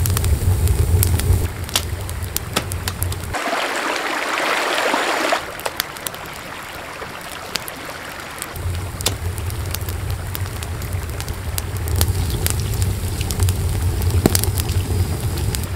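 Wood fire crackling and popping inside a mud-and-stone oven, over a low steady rumble. About three seconds in, the rumble drops out and a rushing hiss lasts about two seconds.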